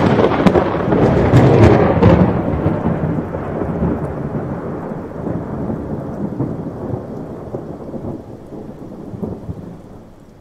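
A close thunderclap with sharp crackling for the first couple of seconds, then a rolling rumble that slowly fades over about eight seconds.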